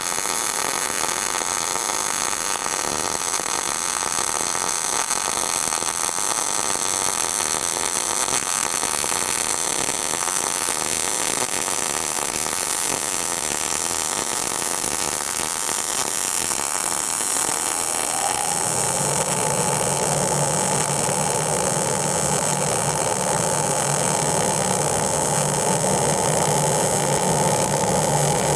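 MIG welding arc running an uphill cap pass on 3/16-inch steel plate, with .030 ER70S-6 wire and 75/25 argon-CO2 gas at 16 volts: a steady, even crackle and hiss, a good crisp arc. About two-thirds of the way in, a steady hum joins it.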